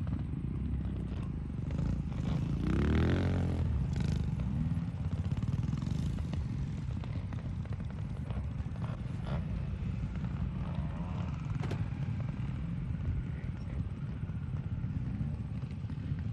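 Honda CT125 trials bike's single-cylinder four-stroke engine running steadily, with a rise and fall in engine pitch about three seconds in and a few light knocks.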